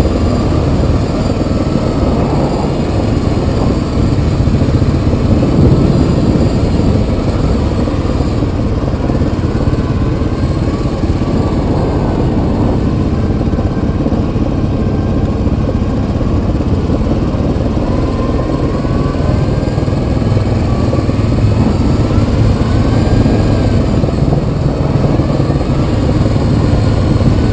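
Yamaha Kodiak 700 ATV's single-cylinder four-stroke engine running steadily while riding, its pitch rising and falling a little now and then with the throttle.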